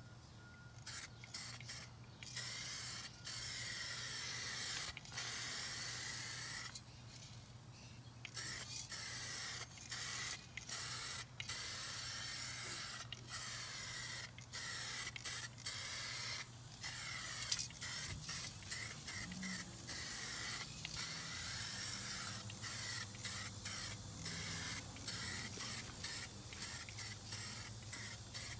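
Spray paint hissing onto a wheel rim in repeated bursts and longer passes, with short gaps between, and one longer pause about a quarter of the way through.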